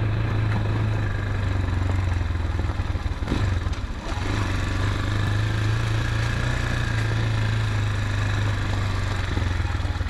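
Motorcycle engine running steadily at low revs, with a brief dip and some clatter about three and a half seconds in.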